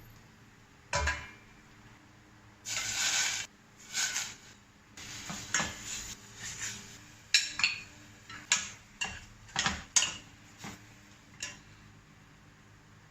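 Kitchen utensils clattering against bowls and dishes during food preparation: a string of separate clinks and knocks, most tightly spaced between about seven and eleven seconds in.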